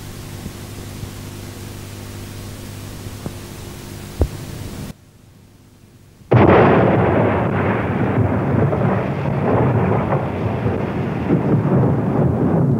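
Hum and hiss of an old 16mm film soundtrack with a few clicks, breaking off about five seconds in. About a second later thunder breaks in suddenly and rumbles on loudly and steadily.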